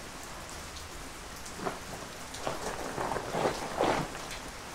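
Steady rain falling, with the nylon tent body rustling and swishing several times in the second half as it is handled and unrolled.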